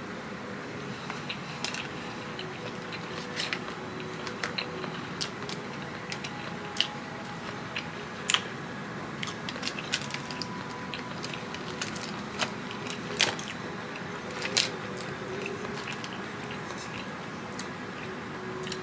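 Close-up eating sounds: a person biting and chewing food, with scattered crisp crunches and wet clicks over a steady low background.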